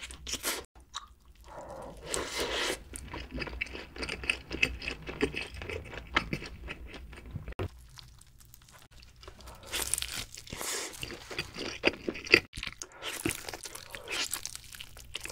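Close-miked eating: wet chewing and crunching of a cheeseburger. After a quieter stretch a little past halfway, crisp crunching bites into a cheese pizza's crust.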